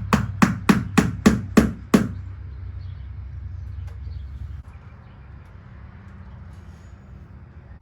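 Background music with a sharp, even percussive beat of about three to four hits a second over a low steady bass tone. It stops about two seconds in, leaving only a faint low hum.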